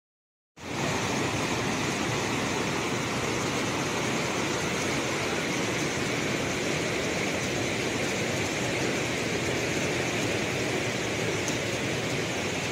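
Floodwater from a river in spate rushing steadily, a constant even rush with no letup that starts about half a second in.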